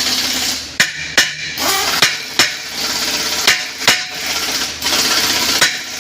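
Hammer blows striking a Ford Explorer's front wheel hub to knock it loose, coming in three quick pairs of sharp metallic knocks over a steady hiss of workshop noise.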